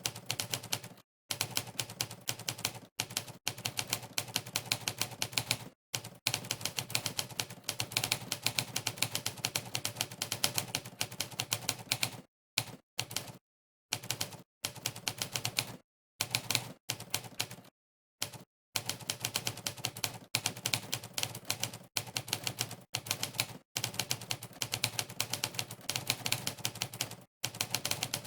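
Typewriter key-clack sound effect from a typing-test website, one clack per keystroke, coming in fast runs of many strikes a second from quick touch typing. The runs are broken by frequent short pauses of dead silence, the longest about a second, around halfway and again a little later.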